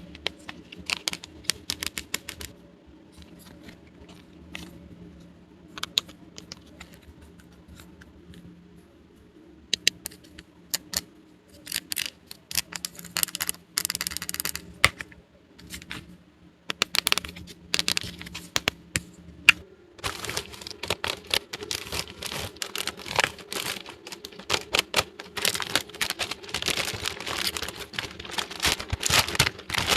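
Small plastic toy pieces being handled, unpacked and set down: a run of light clicks and taps, with a brief stretch of tearing or crinkling packaging about fourteen seconds in and busier clicking and rustling from about twenty seconds on.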